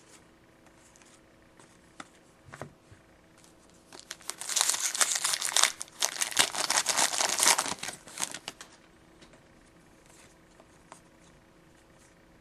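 Foil trading-card pack wrapper crinkling and tearing for about four seconds in the middle, with a brief pause partway through. Faint clicks of cards being handled come before and after.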